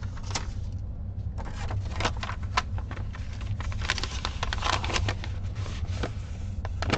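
Hands handling a bundle of embroidery floss on a white sheet: a run of rustles and sharp crinkles, over a steady low hum.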